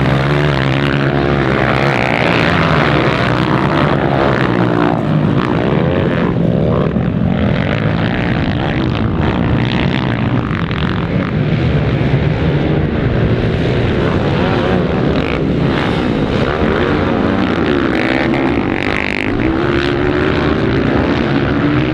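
Motocross dirt bike engines racing on the track, revving up and down over and over as the bikes accelerate and back off.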